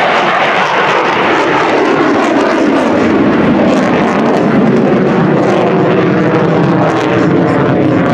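Noise of the F-35A Lightning II's Pratt & Whitney F135 turbofan engine as the fighter climbs steeply overhead. It is a loud, continuous rushing rumble with crackle, and the low end grows heavier a couple of seconds in.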